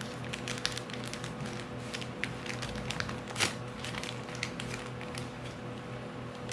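Sheet of paper being handled and folded, giving short, irregular crinkles and taps, over background music with a steady held tone.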